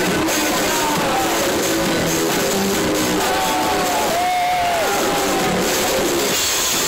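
Live electro-industrial band playing a song at full volume, with a male singer's held, bending vocal line over the dense music from about three seconds in, heard through a phone's microphone.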